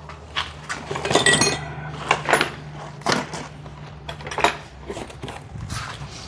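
Metal awning-bracket hardware being handled: irregular clinks and knocks, with a short metallic ring about a second in, over a faint steady hum.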